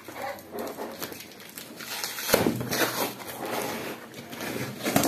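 Cardboard shipping box being torn open by hand: packing tape and cardboard ripping and rustling in irregular bursts, with a louder rip about two seconds in.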